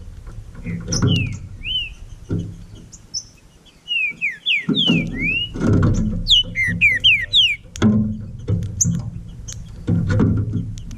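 Green-winged saltator (trinca-ferro) singing phrases of clear, slurred whistled notes, some rising and some falling. Irregular low rumbling bursts run underneath.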